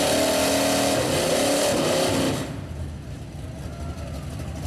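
Two pickup trucks' engines revving hard at full throttle, tires spinning, in a truck-to-truck tug-of-war. About two and a half seconds in, the revving drops off suddenly to a lower rumble as the pull ends.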